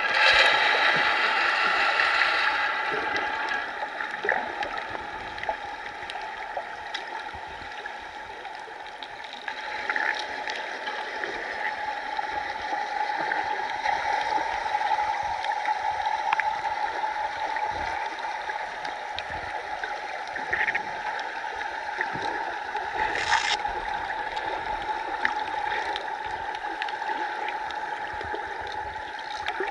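Underwater sound picked up by a camera held below the surface: a steady water noise with a constant hum and scattered faint clicks, louder for the first couple of seconds.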